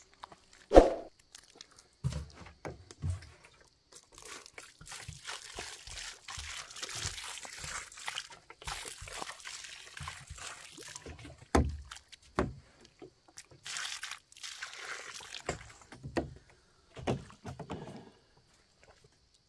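Water pouring in a steady splashing stream from a plastic jug onto soil, between bare feet squelching and stamping in wet mud as earth and water are trodden together into mud. One sharp thump about a second in is the loudest sound.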